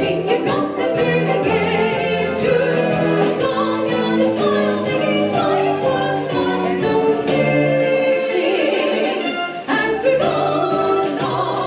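A three-woman vocal trio sings a 1940s-style song together over instrumental accompaniment.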